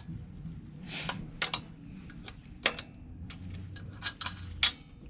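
Irregular sharp metallic clicks and clinks, about nine of them, from tools and the chain being handled at a small motorcycle's rear wheel while the chain slack is set.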